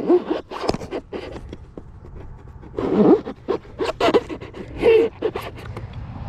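Long knife blade cutting and sawing into a hot tub's foam insulation: a run of short, irregular rasping strokes.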